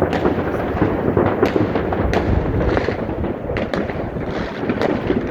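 Many fireworks going off at once in a dense, unbroken barrage of overlapping bangs and crackle.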